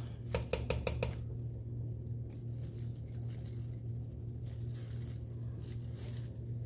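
Metal spoon clinking against a stainless steel mixing bowl about five times in quick succession near the start, then soft scraping and scooping of thick chocolate mixture, over a steady low hum.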